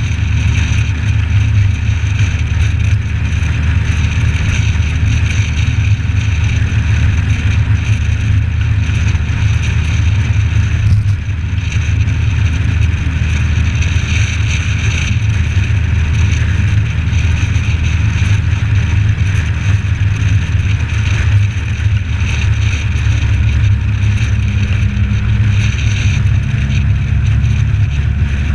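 Suzuki Samurai 4x4 driving at road speed: its engine and the wind make a steady, dull, low rumble, heard through a GoPro's closed housing.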